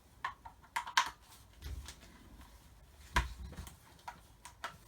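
Hands working stiff plastic pressure-washer parts and their fastenings: a run of sharp plastic clicks and snaps, with the loudest click and a dull knock about three seconds in.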